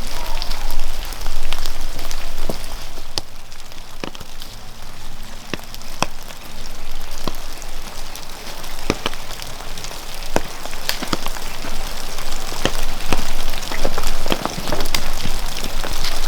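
Wood fire crackling: a steady hiss with sharp pops at irregular moments.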